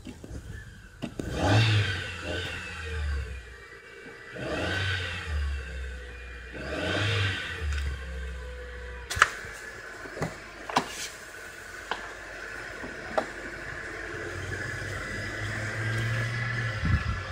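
Car engine cranked on the starter in three short bursts, then catching and running, with a few sharp clicks. It is firing on cylinders that have been soaked with Seafoam to free stuck piston oil rings.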